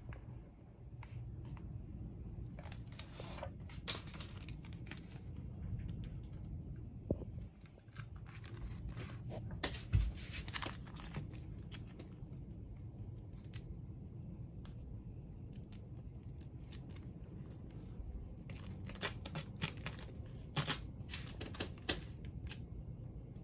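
Peel-and-stick Smart Tiles being worked: backing paper peeled and the vinyl tiles cut and handled, a scatter of short rasps, rustles and clicks with one sharper knock about halfway through.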